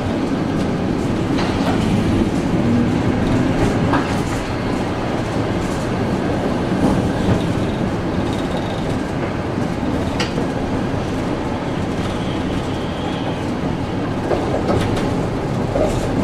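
Streetcar running along the track: a steady rumble from its motors and its wheels on the rails, with a few sharp clicks along the way.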